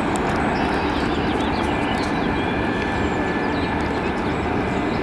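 Steady outdoor background roar, with a few faint bird chirps about a second in.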